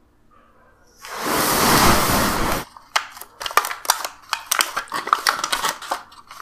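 Aluminium foil takeaway container being opened by hand: a loud continuous rasp for about a second and a half as the lid is pulled, then a quick run of sharp crinkles and crackles as the foil's crimped rim is worked free.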